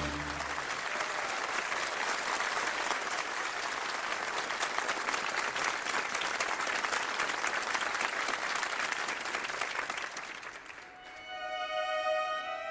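An audience claps for about ten seconds just after the orchestra's final chord. Then, about eleven seconds in, the orchestra begins the next piece, with strings on long held notes.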